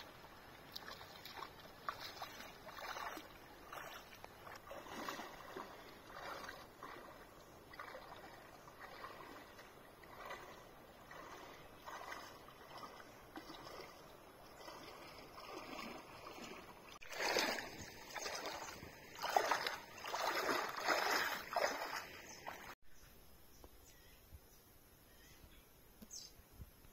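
Water splashing in a run of repeated strokes, about one a second, growing louder for several seconds before stopping suddenly near the end.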